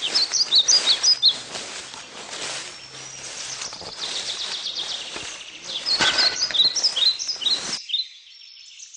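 Birds chirping in quick runs of short high calls, over a steady outdoor hiss; the background changes abruptly near the end.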